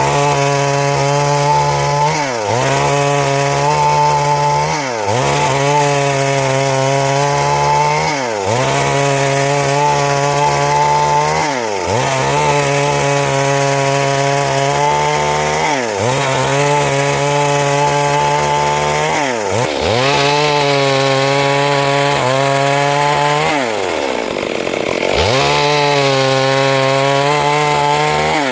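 Stihl MS382 two-stroke chainsaw cutting wood at high revs. Every three to four seconds its pitch briefly drops and climbs back, with a longer drop near the end.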